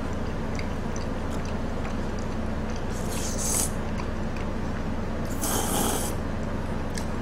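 Close-miked eating sounds: small chewing and utensil clicks, then two short, hissing slurps, about three seconds in and again about five and a half seconds in, over a steady low hum.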